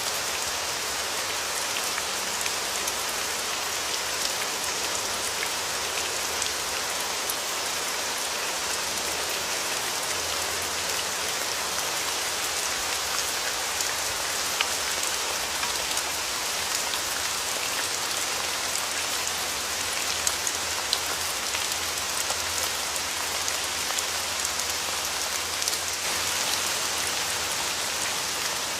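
Steady rain falling, with individual raindrops ticking and pattering in a continuous hiss.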